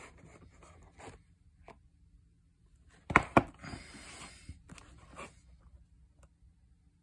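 Cardboard software box handled on a wooden floor: a couple of sharp knocks about three seconds in, then scraping and rustling as its fold-out front flap is opened.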